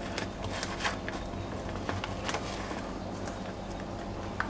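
Scattered light taps and soft plastic-bag rustling as cornstarch is poured from a bag and sifted through a small mesh sieve over a steel mixing bowl, over a low steady hum.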